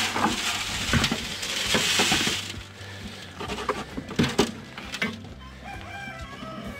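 Dry hay rustling and crunching for the first couple of seconds as it is dropped among feeding goats, then scattered knocks. Chickens cluck in the background near the end.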